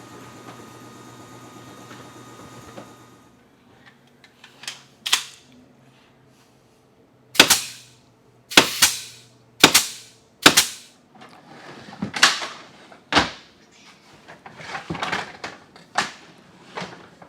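Staple gun firing staples into wooden beehive frame parts: a run of about ten sharp, loud shots at uneven intervals, some followed by a brief hiss or rattle. A steady hum stops about three seconds in, before the shots begin.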